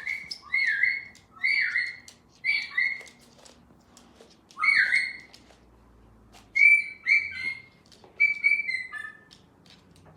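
Young eclectus parrot giving a string of short, repeated squawking calls, each dropping in pitch, in quick groups with a brief pause in the middle.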